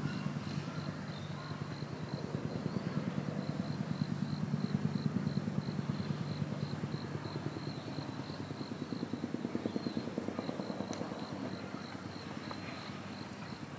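A low mechanical drone pulsing rapidly and evenly, rising and falling slightly in strength. Over it, a high, thin insect chirp repeats several times a second.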